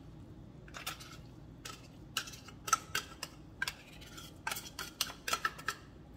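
A metal spoon scraping drained tuna out of a tin can and knocking it into a ceramic mug: a run of short scrapes and clinks that comes thicker from about two seconds in.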